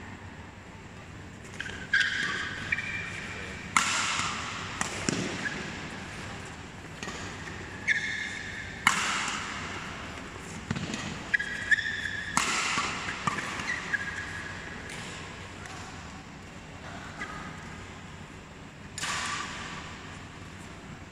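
Badminton rackets striking a shuttlecock in a fast doubles rally: sharp, irregular smacks echoing in the hall, with short squeaks of court shoes on the mat. The hits come thick for the first half, then pause, and one more comes near the end.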